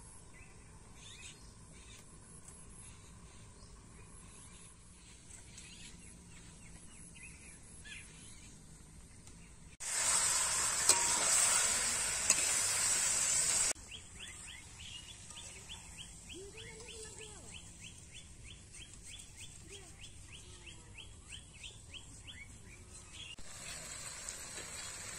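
Pork pieces frying in a wok, sizzling loudly for about four seconds while a metal spatula stirs them; the sizzle starts and stops abruptly. The rest is faint outdoor background with bird calls and, later, a fast even run of high chirps, about four a second.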